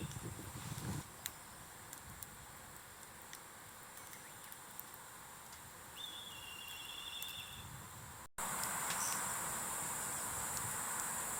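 Outdoor nature ambience with a steady high insect drone and a short trilling call about six seconds in. The background becomes abruptly louder after a brief dropout about eight seconds in.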